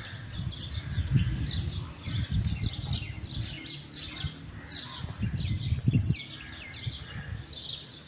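Many small birds chirping, a busy run of short, high, downward-sliding chirps, over a low, uneven rumble on the microphone.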